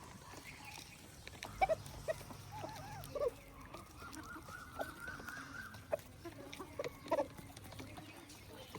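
Poultry calling: a scatter of short clucks and one longer drawn-out call of about two seconds in the middle.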